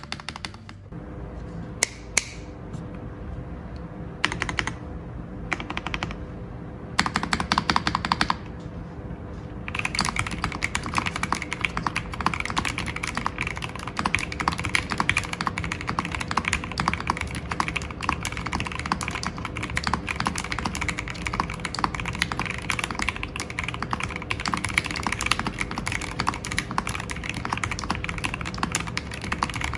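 Keychron V5 Max mechanical keyboard with stock, unlubed Gateron Jupiter Red linear switches being typed on as a sound test. A few separate keystrokes and a short quick flurry come first, then continuous fast typing from about a third of the way in.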